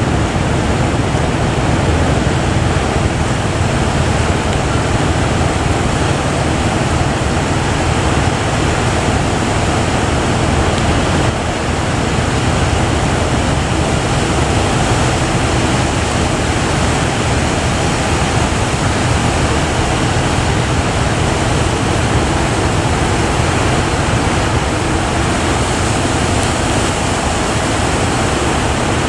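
Steady, loud rush of big breaking ocean waves, with no distinct single crash standing out.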